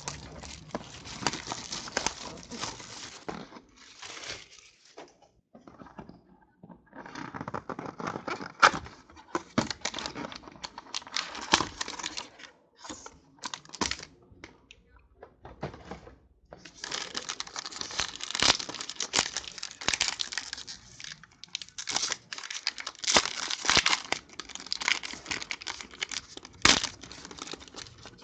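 Plastic wrapping torn off a box of football trading cards and crumpled, in bursts of tearing and crinkling with a couple of short pauses.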